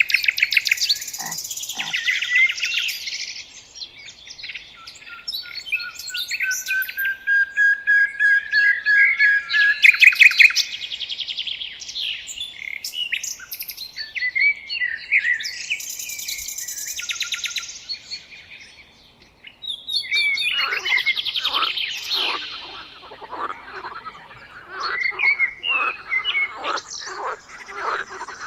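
Birds singing and frogs calling together by a river. One long note rises slowly in pitch about a quarter of the way in, and a dense run of short clicking calls fills the last third.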